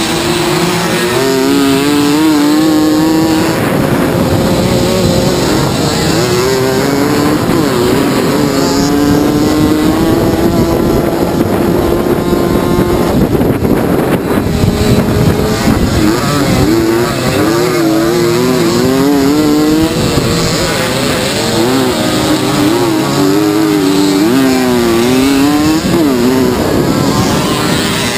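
Several mopeds' small two-stroke engines racing, whining with a pitch that keeps rising and falling as they rev, often two engines heard at once.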